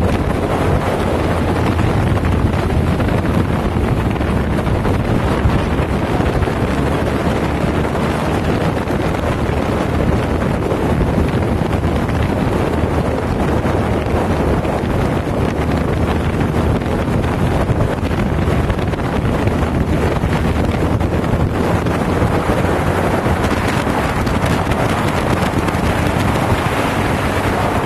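Steady wind roar buffeting the microphone over the running Kawasaki ZRX1200S inline-four engine, as heard while riding at a constant speed.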